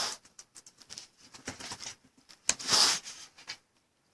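Handling noise: a run of light clicks and taps with two short rustles, the louder one about two and a half seconds in.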